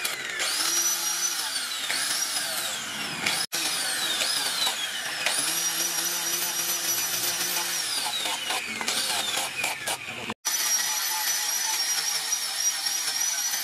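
Handheld angle grinder with a sanding disc sanding a wooden knife handle: a high motor whine that sags in pitch each time the disc is pressed into the wood and climbs back as it is eased off, several times over, then holds steadier near the end. The sound breaks off abruptly twice.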